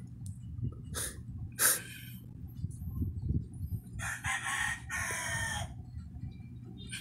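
A rooster crowing in the background: one crow in two parts, starting about four seconds in and lasting under two seconds. Before it come two sharp clicks, the second the loudest sound, over a steady low hum.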